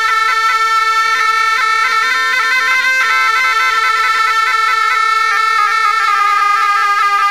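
Two gyalings, Tibetan double-reed shawms, playing a melody together in the Drikung Kagyu style. The notes are held long and broken by rapid ornamental flicks, and the line steps down to a lower held note about two-thirds of the way through.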